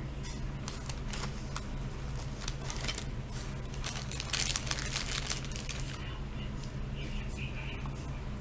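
Hands working the plastic air filter cover of a chainsaw: a run of small clicks, knocks and rustles, busiest about four to five and a half seconds in, as the cover's knob is turned and the cover does not come off.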